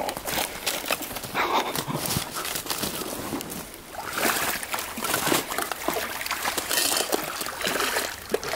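Irregular splashing and sloshing of water in a shallow creek over the trickle of the stream, as a hooked steelhead thrashes while being played and landed.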